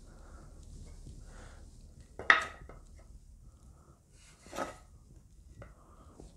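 A steel protractor and a wooden post being handled: a sharp metallic clink a little over two seconds in, a softer knock around four and a half seconds, and faint rubbing and rustling between them.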